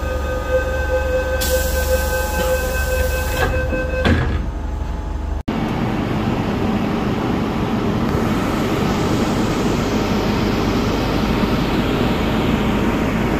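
MTR metro train: a steady whine with a hiss of air as the sliding doors close, ending in a couple of knocks as they shut about four seconds in. After an abrupt cut, the steady rumble of the train running.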